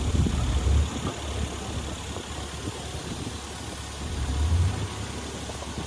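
Heavy diesel engine of earthmoving machinery running with a steady low sound, swelling briefly in the first second and again about four and a half seconds in.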